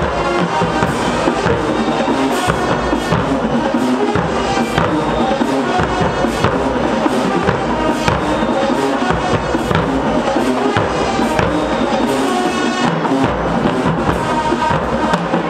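Show-style marching band playing: brass with sousaphones over a steady drum beat.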